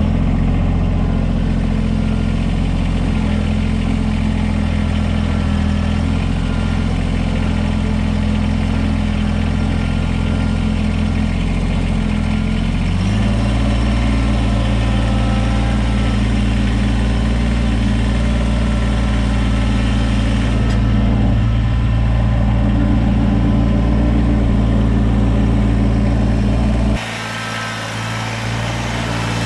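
Kubota BX2380 compact tractor's three-cylinder diesel engine running steadily, heard close up. About 13 seconds in its note changes and it gets slightly louder. Near the end the sound drops abruptly, quieter and farther off.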